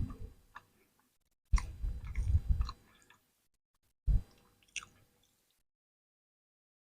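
Close-miked chewing and biting of food, in three short stretches.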